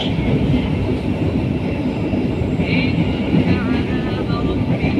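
Steady rumble of a passenger train running, heard from inside the carriage.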